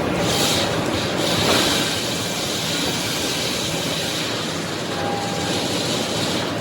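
Sawmill machinery running steadily: a continuous, loud mechanical din of saw, chains and rollers, with a faint high whine over it.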